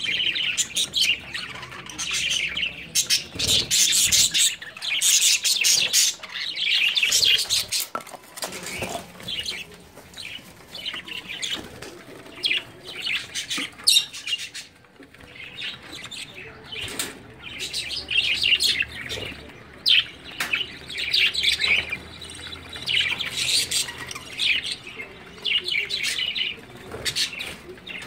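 Budgerigars chirping and chattering in quick, irregular bursts, with one sharp click about halfway through.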